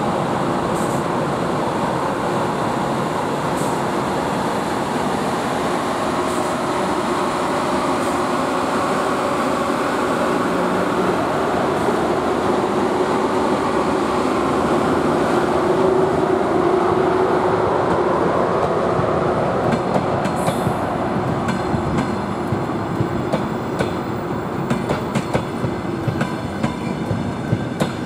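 A ChS7 twin-section electric locomotive hauling a passenger train rolls past with a steady rumble and hum that are loudest as the locomotive goes by. In the second half the passenger coaches follow, and their wheels click over the rail joints in a growing clickety-clack.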